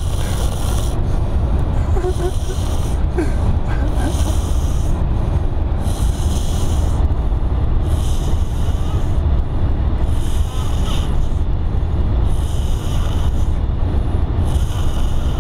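A man snoring, his breaths rising and falling in a slow rhythm about every two seconds, over a steady low rumble.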